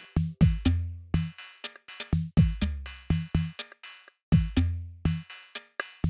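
Electronic background music with a drum-machine beat of deep, falling kick drums and sharp hits, breaking off for a moment about four seconds in.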